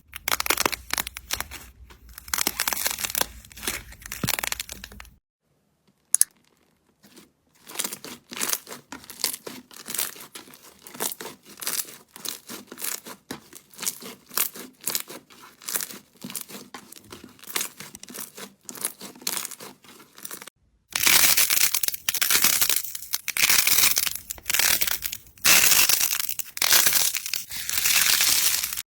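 Slime being squeezed, poked and stretched, making dense crackling and clicking sounds across several separate clips. About five seconds in it breaks off into a short silence broken by a single click. The loudest, sharpest crackling comes in the last few seconds.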